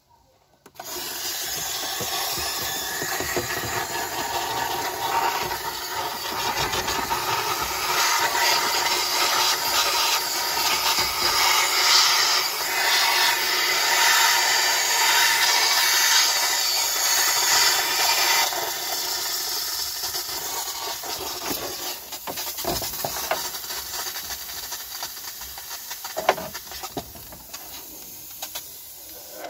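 Handheld steam cleaner jetting steam, a steady hiss that starts about a second in and grows weaker over the last third.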